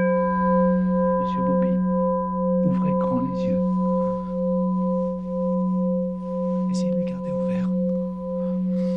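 A sustained droning hum of steady tones, one of them throbbing a little over twice a second, with faint muffled voices drifting over it now and then.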